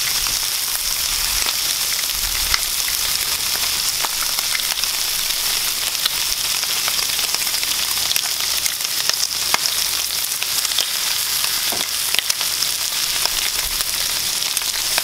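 Bacon strips and hash browns frying on a hot Blackstone flat-top griddle: a steady sizzling hiss with scattered small pops of spattering fat.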